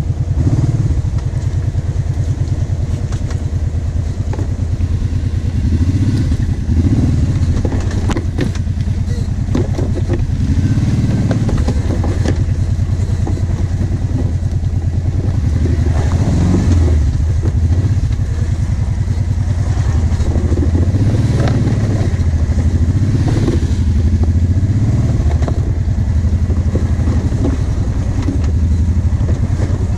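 ATV engine running under load as the quad is ridden along a muddy trail. The throttle rises and falls in several swells, with a few short clatters as it goes over bumps.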